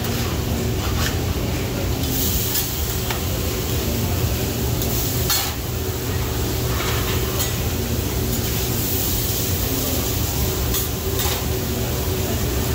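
Food sizzling on a teppanyaki steel griddle, with a metal spatula scraping and tapping against the hot plate now and then, over a steady low hum.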